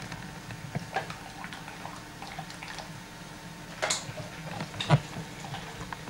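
Scattered light clicks and knocks of kitchen things being bumped, over a steady low hum, with a short hissing rustle about four seconds in and a louder knock about a second later.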